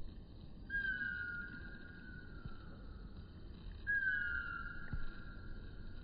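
Two long whistled tones, each falling slightly in pitch, about three seconds apart, over a low background rumble.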